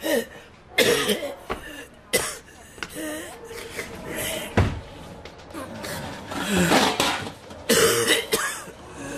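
A person coughing and groaning between several dull thumps, the heaviest about halfway through: scuffle and beating sound effects in a radio drama.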